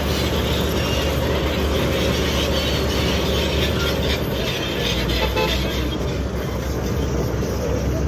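Crawler bulldozer's diesel engine running steadily under a dense, even mechanical rumble.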